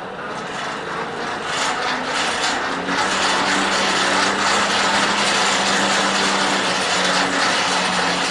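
Coal forge's blower building up to speed over the first few seconds and then running steadily: a rushing air noise with a low hum under it, blowing air into the fire.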